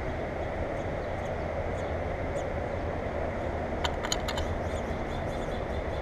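Steady low outdoor background rumble, with a quick run of faint high ticks about four seconds in.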